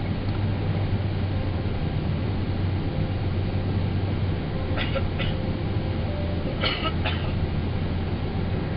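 Steady cabin noise inside a Boeing 777 airliner: a continuous low rumble and rush from the engines and airflow. Two pairs of short clicks about halfway through.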